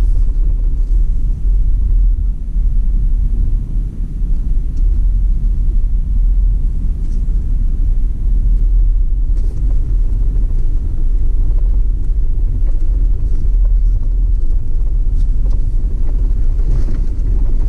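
Car driving slowly along a city street: a steady low rumble of engine and road noise.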